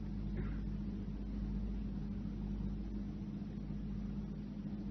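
Steady low electrical hum with a faint hiss: the background noise of an old recording.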